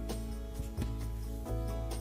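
Background music: soft instrumental with sustained notes over a steady low bass, the notes changing every half second or so.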